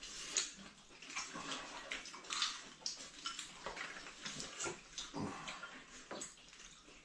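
Eating sounds: irregular wet chewing and smacking, with a few small clicks.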